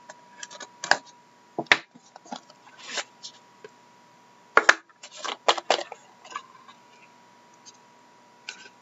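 A small lidded cardboard box of trading cards being opened by hand: the seal slit, the lid pulled off and the stack of cards slid out. It is heard as a run of sharp scrapes, taps and clicks, loudest about four and a half seconds in.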